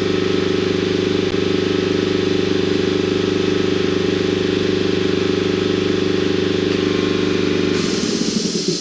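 A shop machine's electric motor running with a steady hum, then winding down in pitch and stopping near the end.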